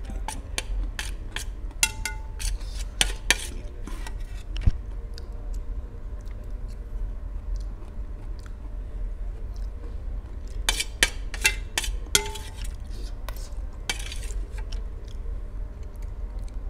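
Metal spoon scraping and clinking against a stainless steel plate, some strikes ringing briefly, in two spells: the first few seconds and again from about 11 to 14 seconds in, with quieter chewing between.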